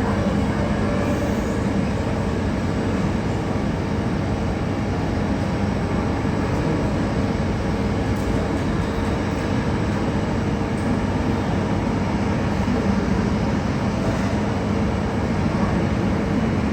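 Airliner jet engines running with a steady, unbroken rumble and a faint whine.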